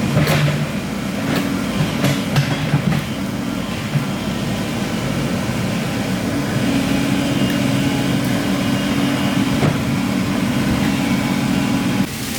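Excavator's diesel engine running steadily, with a few sharp knocks and clanks in the first few seconds and one more near the end.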